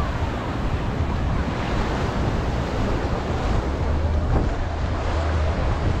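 Surf washing onto a beach, a steady rush of waves, with wind buffeting the microphone in a low rumble.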